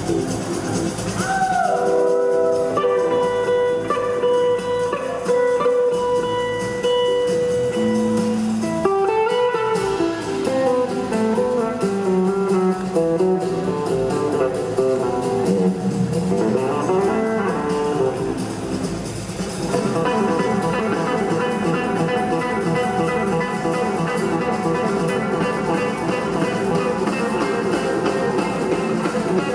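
Live electric blues-rock band jam: an electric guitar lead with long held notes and gliding, bending pitches over drums. The band grows fuller and denser about twenty seconds in.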